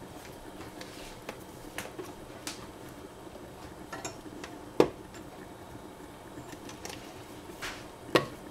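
Light clatter and knocks of a hand blender and its cord being handled and set down on a gas stovetop beside a lidded steel saucepan, with two sharp knocks, about five seconds in and near the end, over a low steady background.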